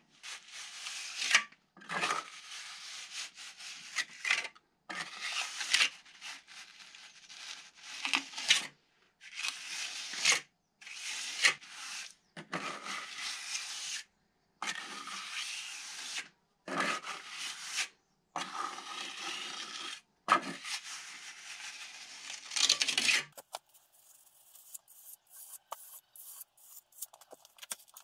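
Steel plastering trowel scraping and smearing lime render onto a curved earth-plastered wall, in a run of rasping strokes that break off abruptly one after another. Near the end it turns quieter, with light clicks.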